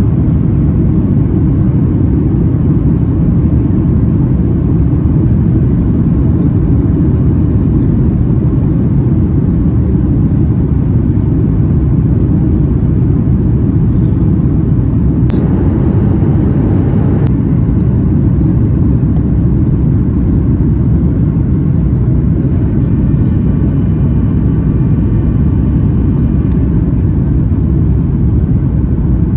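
Cabin noise inside a Boeing 737 MAX on approach with flaps down: a steady low rumble of its CFM LEAP-1B engines and the airflow. About halfway a louder hiss comes in for two seconds and cuts off suddenly, and a faint thin whine is heard for a few seconds near the end.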